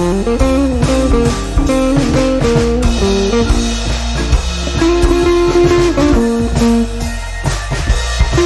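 Background music: a blues-style electric guitar tune with bending notes over bass and a steady drum kit beat.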